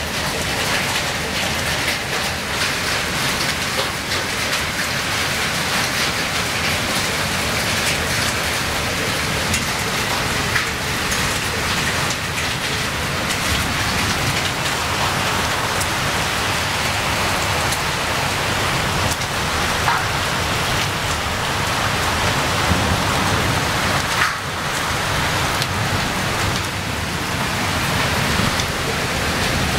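Hail and heavy rain beating on roofs: a dense, steady hiss packed with many small sharp ticks.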